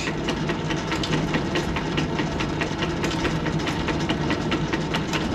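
80-year-old Wade 8A manual lathe running with its spindle turning but no cut being taken: a steady low hum with a regular ticking at about four a second from the drive.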